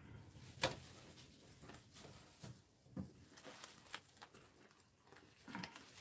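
Quiet kitchen handling sounds as a bamboo gimbap-rolling mat is set on a wooden cutting board and a dry sheet of gim (roasted seaweed) is picked up: one sharp click about half a second in, then a few soft taps.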